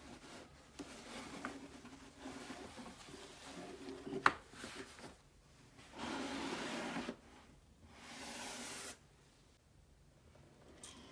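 Cotton tote bag rustling as it is folded into a cardboard shoebox, with one sharp tap about four seconds in. Then the box's cardboard sleeve scrapes along the box twice, each slide lasting about a second.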